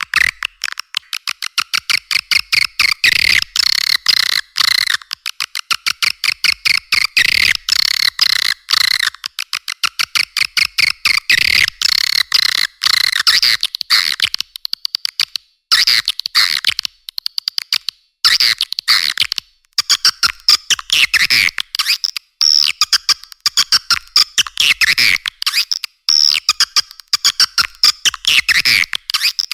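Swiftlet calls: a dense, unbroken stream of rapid high chirps and twitters, a lure call played to draw swiftlets into a swiftlet house, with chick-like response calls mixed in. It sounds thin, with nothing below the high twittering.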